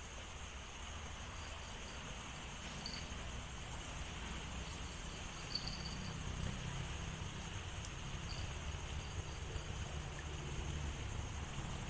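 Insects chirring steadily in the riverside vegetation, with a few short chirps standing out, over a low rumble.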